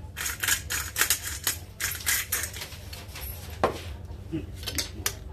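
Hand pepper grinder twisted in quick, crackly grinding bursts over raw pork chops. It is then set down with a single knock about three and a half seconds in, followed by a few light clicks near the end.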